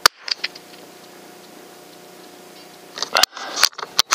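Sharp mechanical clicks and knocks: one sharp click at the start with two lighter ticks just after, then a cluster of clicks and knocks in the last second or so.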